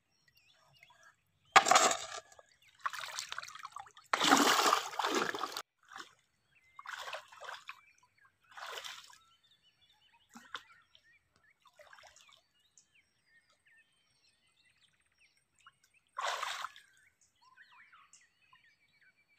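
Water sloshing and splashing in a series of separate bursts. The longest and loudest lasts about a second and a half, a few seconds in, and one more short splash comes near the end.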